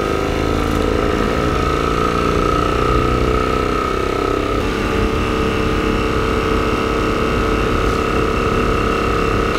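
Homemade speaker, with an LED bulb dome as its cone in a plastic tub, playing a deep, buzzing bass sound; the tone shifts about halfway through.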